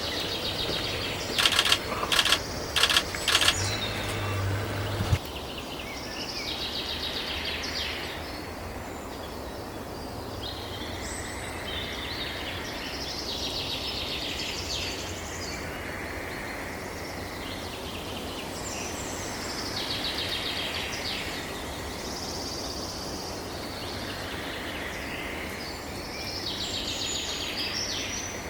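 Small birds singing short, chattering phrases that recur every two to three seconds over a steady outdoor background hiss. A handful of sharp clicks or knocks come in the first few seconds.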